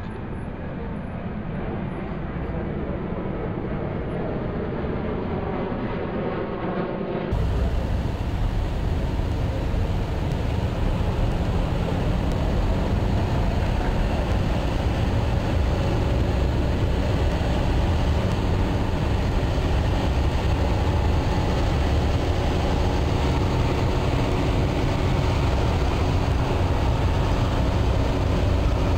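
Steady traffic noise of a long line of cars and trucks driving past at road speed, engines and tyres rushing by. About seven seconds in the sound changes abruptly and becomes louder, with a heavier low rumble.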